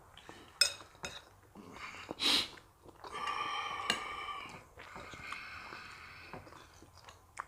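Cutlery clicking against a plate during a meal, then a short sharp burst of breath. After it comes a high, thin, drawn-out tone lasting about a second and a half, with a fainter one following.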